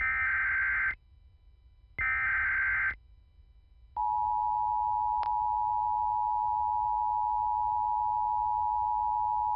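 Emergency Alert System tones: two one-second SAME header data bursts, the screechy digital chirps that encode the alert's header, a second apart. About a second after them comes the steady two-tone EAS attention signal, with a brief click about a second into it.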